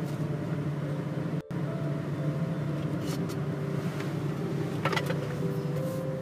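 Steady low rumble of a vehicle running, which cuts out for a split second about one and a half seconds in; a couple of faint clicks come later.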